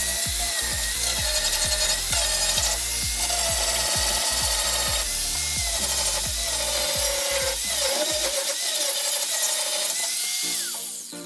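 Power tool running on metalwork with a high whine that sags in pitch now and then, over background music with a steady beat; it stops shortly before the end.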